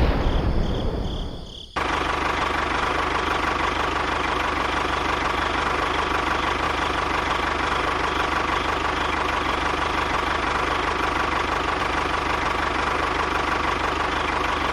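An engine running steadily at an even speed, starting abruptly about two seconds in, after a loud boom dies away.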